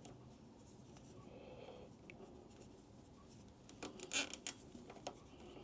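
Faint rubbing and scratching of a plastic cable tie being threaded around wiring and pulled through, with a short scratchy burst about four seconds in.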